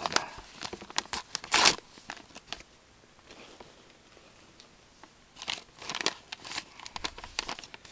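Trading-card packaging being handled: plastic crinkling with short clicks and scrapes in the first two seconds and again in the last few seconds, quieter between.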